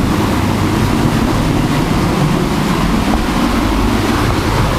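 Wind buffeting the microphone: a steady, loud, rumbling noise with no distinct events.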